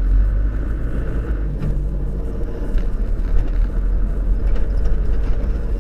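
Steady low rumble of a car driving, its engine and road noise heard from inside the cabin through a dashcam microphone.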